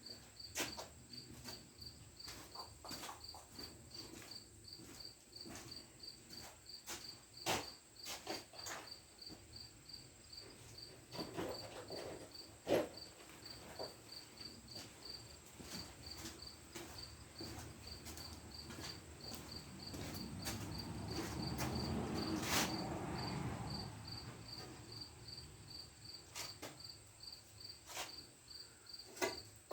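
A cricket chirping steadily in a high, even rhythm of about three chirps a second. Over it come scattered clicks and knocks of parts being handled, and a few seconds of louder rubbing noise a little past the middle.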